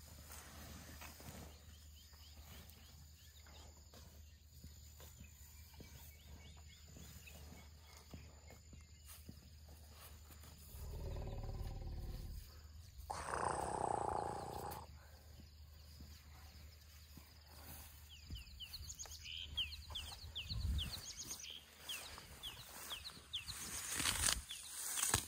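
Elephant calls: a low rumble about eleven seconds in, then a louder call lasting about two seconds. Short chirping bird calls follow near the end.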